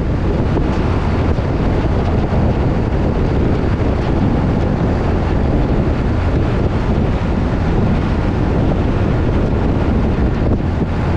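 Wind buffeting the microphone over the steady low rumble of a truck driving along the highway.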